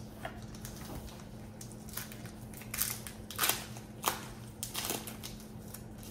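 Foil wrapper of a Pokémon booster pack crinkling in a series of short bursts as the pack is handled and opened.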